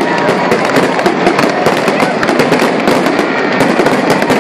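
Aerial fireworks going off in quick, continuous succession: many sharp bangs and dense crackling with no break.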